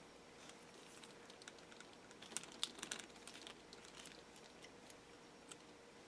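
Faint, scattered light clicks and taps of small tools and parts being handled on an RC buggy, bunched together about halfway through.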